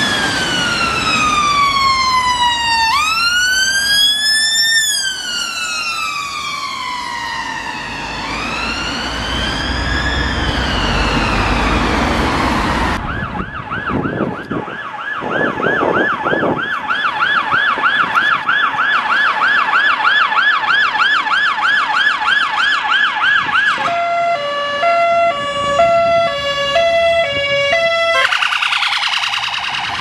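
UK ambulance sirens: a wail rising and falling in slow sweeps of a few seconds each, then a fast yelp repeating about three times a second, then a two-tone high-low pattern near the end.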